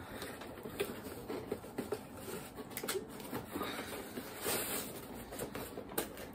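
Fingers scratching and picking at the tab slots of a cardboard box: a string of faint scrapes and small taps on the cardboard.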